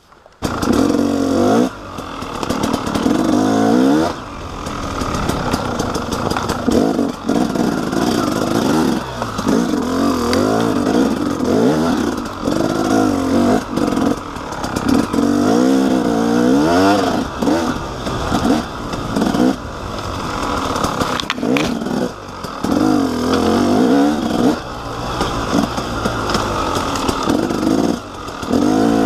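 KTM 300XC's two-stroke single-cylinder engine under throttle while riding, revving up and dropping back again and again, every second or two. The engine sound comes in suddenly about half a second in.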